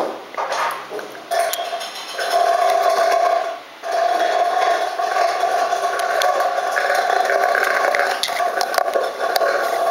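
Hail and heavy rain pelting down: a dense patter of sharp hailstone hits over a steady rush of rain. The sound dips a few times in the first four seconds, then holds steady.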